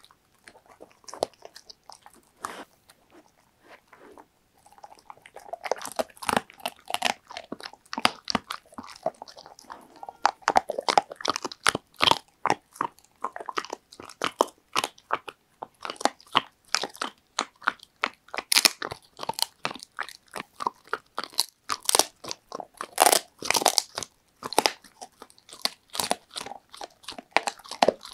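Labrador retriever chewing a dried shark-cartilage treat close up, with sharp crunching bites coming in clusters and a short lull a few seconds in. The dog's breathing is heard between bites.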